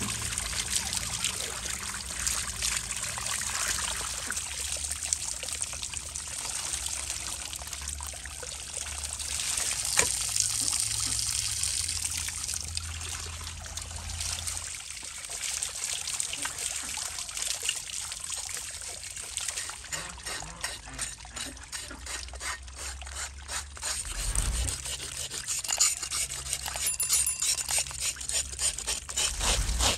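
Water trickling and running steadily, with a run of quick clicks and taps in the last third.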